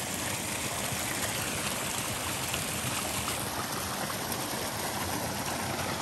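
A high-volume spring-fed stream running steadily over its shallow bed, an even rush of flowing water.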